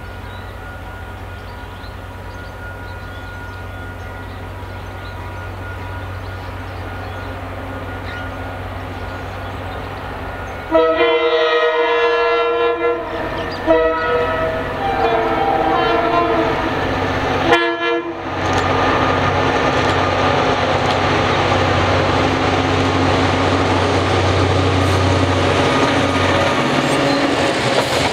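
A DBR-class diesel locomotive approaching and passing. Its distant engine hum slowly grows louder. About ten seconds in, the horn sounds a long chord blast, a second long blast and a short toot. Then loud engine and wheel noise follow as it runs past.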